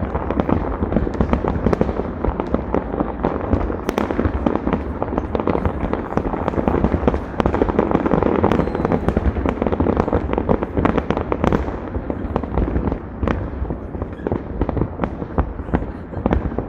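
Fireworks going off in a dense, unbroken barrage: many bangs and crackles overlapping over a low rumble, thinning slightly in the last few seconds.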